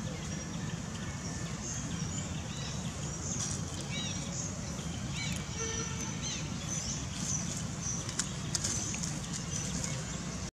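Outdoor ambience: a steady low rumble with scattered short, high chirps, a few repeated in quick sets about a third and half way through.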